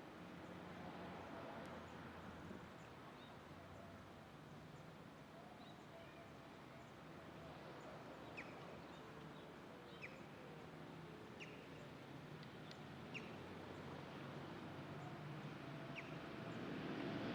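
Faint, short bird chirps, single high notes a second or two apart, over a quiet background with a low steady hum.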